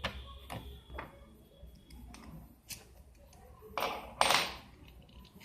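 Light taps and clicks of a small screwdriver and tiny parts on an opened iPhone 6 while screws are being removed, with a louder brief scrape about four seconds in.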